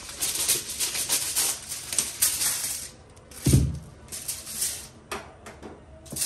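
Kitchen aluminium foil crinkling and crackling in short bursts as it is handled and cut into pieces. There is one dull thud about halfway through.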